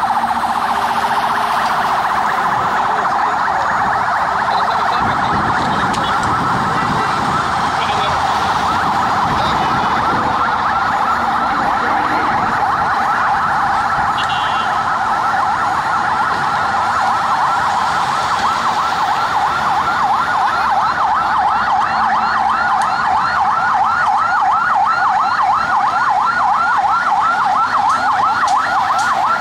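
Several police vehicle sirens sounding together from an approaching convoy, wailing and yelping over each other, with a fast yelp of about three to four cycles a second standing out more clearly near the end.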